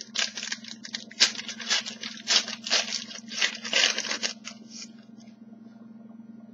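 Trading cards and their packaging being handled: a run of quick rustling, scraping strokes, a few a second, stopping about five seconds in, over a steady low electrical hum.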